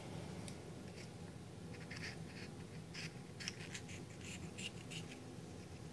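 Small scissors snipping into the leathery shell of a ball python egg to cut a flap in it: faint, irregular snips and scratches.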